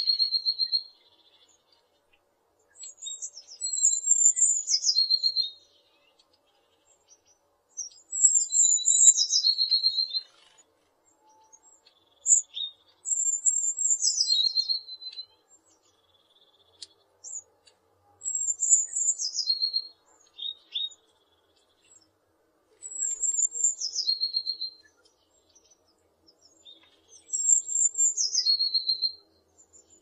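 Eurasian blue tit singing: a phrase of a few high, thin notes falling into a lower trill, repeated six times at intervals of about four to five seconds.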